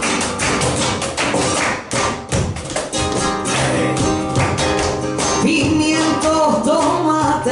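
Live flamenco tangos: flamenco guitar strumming, a cajón and hand claps keeping the rhythm, with a dancer's sharp heel-and-toe footwork striking the stage. A singer's voice comes in over it in the second half.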